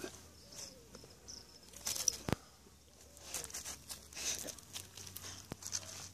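Soft, irregular scuffing and rustling of a dog's paws and muzzle on dry, gravelly soil and grass as it circles a snake, with one sharp click about two seconds in.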